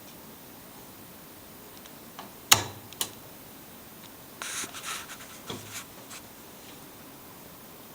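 Two sharp clicks about half a second apart, then a second and a half of scratching and rubbing with a soft knock, like equipment being handled.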